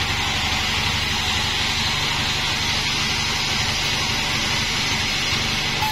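Large band sawmill running steadily, its engine's drone under the hiss of the blade sawing a Bayur log.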